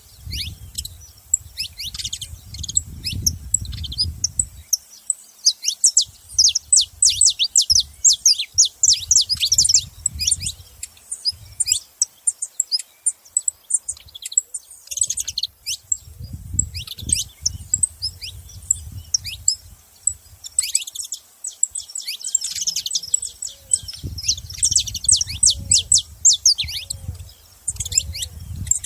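Saffron finch calls: rapid runs of short, high, quick downward chirps with brief pauses. A low rumble comes and goes underneath.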